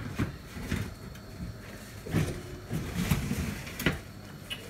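A baking dish being slid into an oven and set on the metal racks: scraping slides and several knocks, the sharpest a little before the end.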